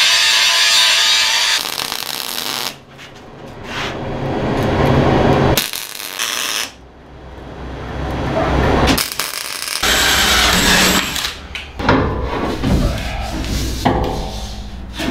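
An angle grinder cutting steel, stopping about a second and a half in. Then a MIG welder crackling through several short welds on steel, in separate runs that start and stop.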